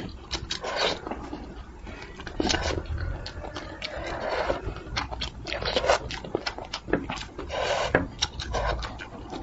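Close-up mouth sounds of eating braised fish: wet chewing, sucking and slurping, broken by many short sharp clicks and smacks.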